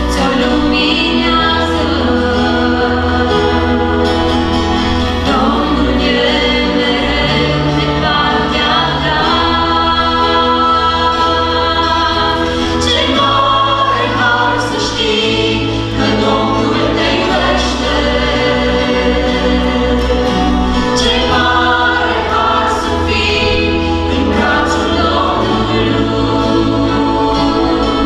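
Church worship group of mixed men's and women's voices singing a gospel hymn together, with guitar accompaniment and low bass notes that change every second or two.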